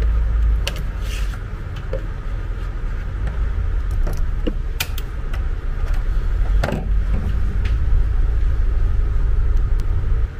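A loud, steady low rumble with several sharp clicks and knocks over it as a plastic remote-control cable plug is pulled out and handled. The rumble stops abruptly at the end.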